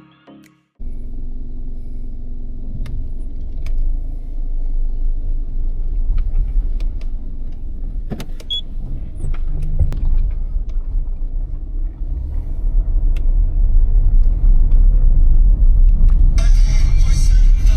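Road and engine rumble heard from inside a moving car, steady and low and slowly getting louder, with small rattles and clicks from the cabin. Near the end a brighter layer comes in over it.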